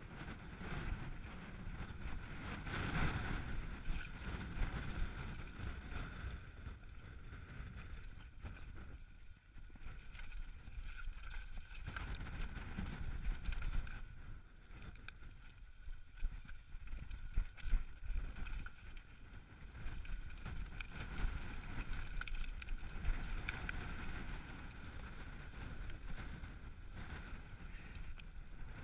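Mountain bike riding fast down a loose rocky trail: tyres rolling and crunching over stones, the bike rattling and knocking over the rocks, with wind buffeting the microphone.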